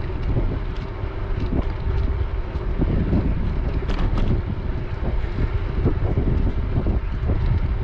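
Wind buffeting a bike-mounted GoPro's microphone while riding along a paved path, a steady low rumble with scattered light clicks and rattles from the bike over the path's bumps.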